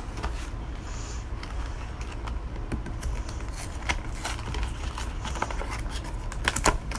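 Hands handling a cardboard Everyburger snack box: faint scrapes and clicks of fingers and nails on the cardboard, over a steady low hum.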